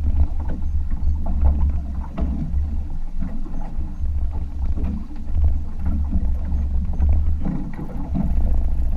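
Wind buffeting the camera microphone on an open boat at sea: a low rumble that swells and fades, with faint scattered clicks over it.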